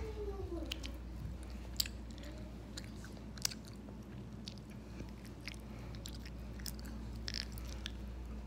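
Someone chewing close to the microphone: scattered soft clicks and smacks over a low steady hum.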